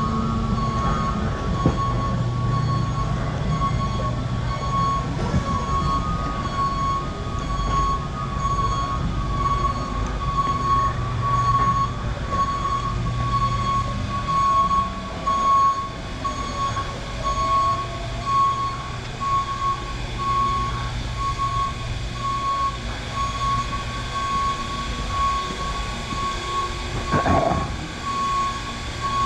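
Steady machine hum with a continuous high-pitched tone over it, and a single knock near the end.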